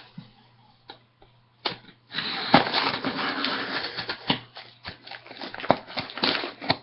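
Cardboard shipping box being cut open with a knife and handled: a few scattered clicks and taps, then from about two seconds in a dense stretch of scraping and rustling lasting over two seconds, then more clicks and scrapes.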